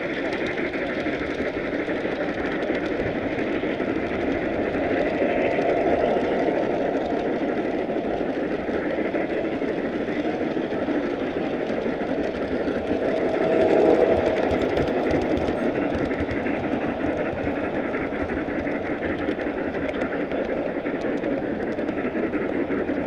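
Model train running along its track, its wheels and drive making a steady mechanical clatter and hum up close, growing louder briefly twice, about a quarter and about two-thirds of the way in.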